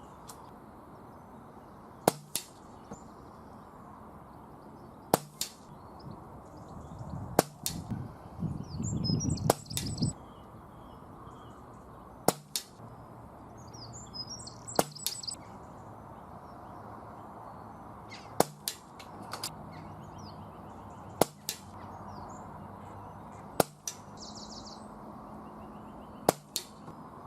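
.177 PCP air rifle shots, about ten of them, each a sharp crack every two to three seconds. Each is followed a fraction of a second later by a fainter tick of the pellet striking the metal bell-ringer target. Birds chirp in the background, and there is a brief low rumble near the middle.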